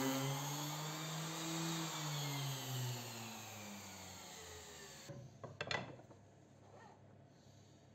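Electric random orbital sander on a pine board: its motor hum rises briefly in pitch, then falls steadily and fades out as it winds down after being switched off. About five seconds in come a few short knocks of a wooden strip being set against a miter saw fence.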